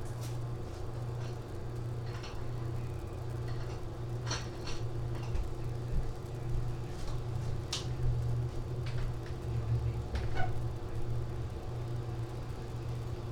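Steady low hum with a few light clicks and knocks scattered through it, about four of them, the plainest near the start, a little past the middle, and about three quarters of the way in.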